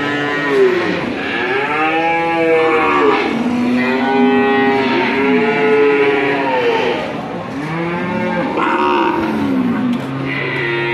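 Cattle mooing: several long, overlapping calls, each rising then falling in pitch.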